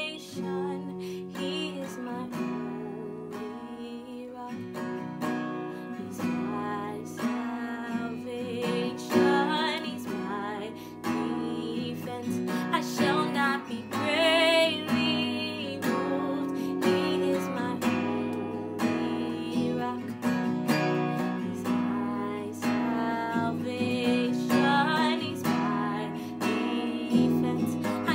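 Acoustic guitar with a capo, strummed steadily, with a woman singing over it in long held, wavering lines.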